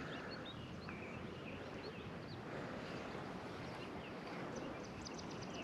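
Outdoor ambience: a faint steady hiss with many short, scattered bird chirps.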